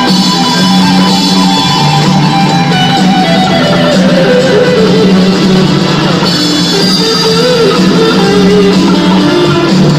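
Live rock band playing: electric guitars over drums, loud and continuous, with a melody line that bends in pitch partway through.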